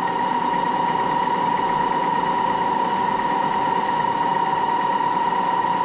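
Moore No. 2 jig borer running with its spindle turning, a steady whine.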